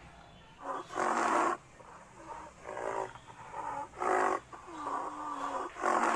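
An animal calling over and over: short pitched cries about one a second, with a longer, drawn-out call near the end.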